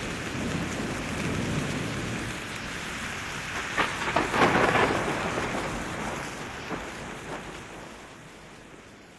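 Rain falling in a steady hiss, with a crack and rumble of thunder about four seconds in, slowly fading out.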